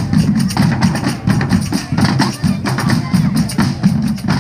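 Drums and hand percussion playing a steady, driving rhythm, with voices mixed in.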